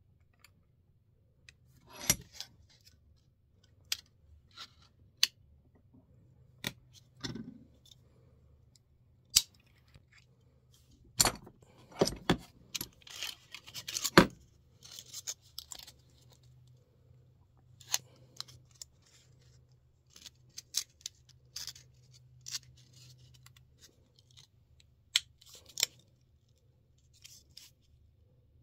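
Sheet tin being worked in a steel bench vise: irregular metallic clicks, taps and short scrapes as the vise handle is turned and the strip is pushed over the jaws by hand, with a cluster of sharp knocks near the middle.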